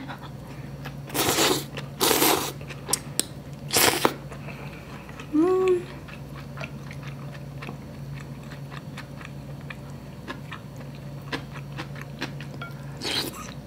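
A person slurping and chewing cold noodles from cold noodle soup: three loud slurps in the first four seconds, a short hummed "mm" a little after five seconds, then quiet chewing with small clicks and another slurp near the end. A faint steady low hum runs underneath.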